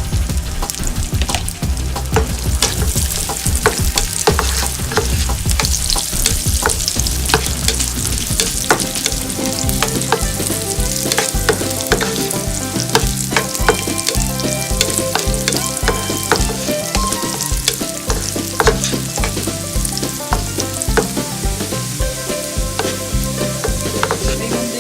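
Food frying and sizzling in hot fat in a pan, stirred with a spatula that scrapes and taps against the pan many times.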